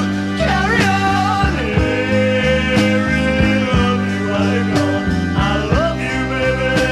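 A rock band recording played from vinyl: a slow rock ballad with steady bass notes, drum hits and a wavering lead melody line.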